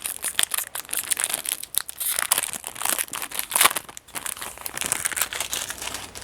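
Foil trading-card booster pack wrapper crinkling and being torn open, a dense run of sharp crackles that stops at the end.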